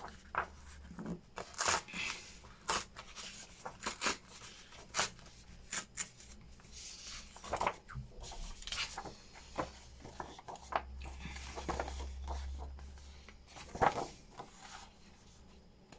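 Loose sheets of old book paper rustling and sliding as they are picked up, flipped over and laid down on a table, in short irregular rustles and light slaps.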